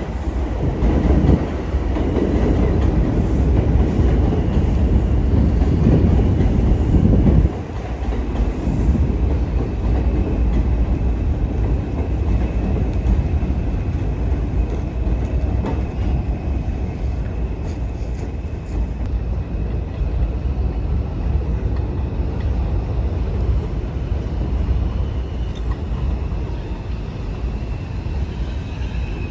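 New York City subway train (4 line) running on the rails with a steady low rumble, louder for the first several seconds and dropping suddenly about seven and a half seconds in, with a faint high whine later on.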